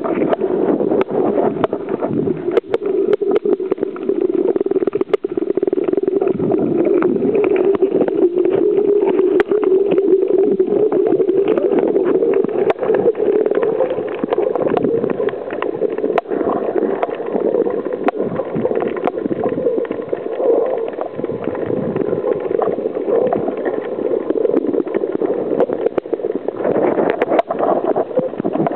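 Muffled underwater noise picked up by a camera in its housing: a steady low hum with many scattered clicks and crackles.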